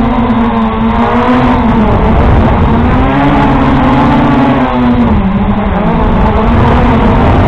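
Quadcopter drone's electric motors and propellers buzzing loudly, heard from the drone's onboard camera as it climbs off the water. The pitch wavers up and down with the throttle, over steady rushing noise.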